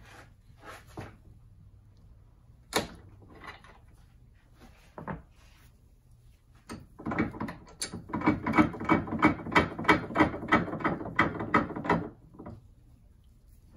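Hand tools being handled at a workbench: a few scattered sharp clicks and knocks, then a loud, even run of clicks at about four a second for about five seconds.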